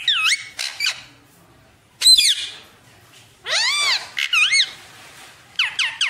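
Indian ringneck parakeet giving a series of short, high-pitched calls and squawks with quiet gaps between; the loudest is a falling squawk about two seconds in.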